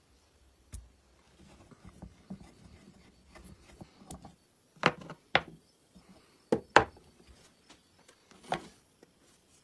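Hand work on parts of an old sewing machine: light rubbing and scraping for a few seconds, then sharp knocks and clicks of hard parts or tools being set down or struck, two close pairs and then a single one.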